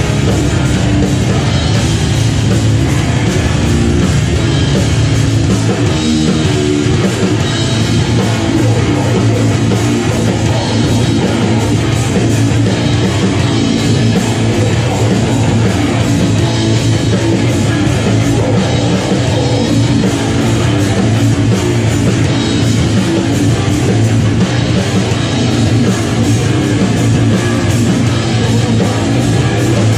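Heavy metal band playing live in a small club: heavily distorted electric guitar over a full drum kit with crashing cymbals, loud and dense.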